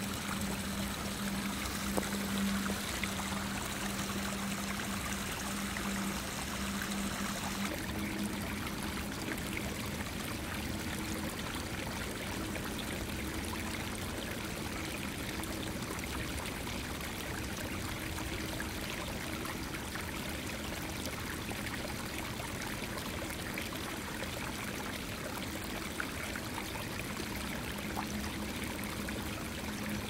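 Small woodland creek running over stones, a steady rush and trickle of water. The sound of the water shifts about eight seconds in, and a steady low hum sits under it for the first eight seconds and again near the end.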